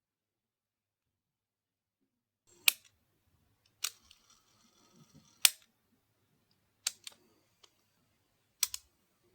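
Sharp plastic clicks and snaps from handling a Sony Walkman FX415 cassette player during its belt replacement: five distinct clicks a second or so apart, starting a couple of seconds in, with fainter ticks and rattles between them.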